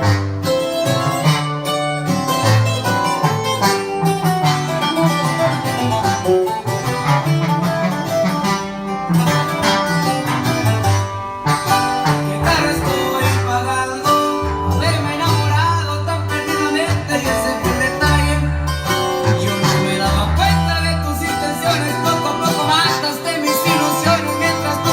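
Country-style music with plucked guitar and banjo over a steady bass line, and a singing voice.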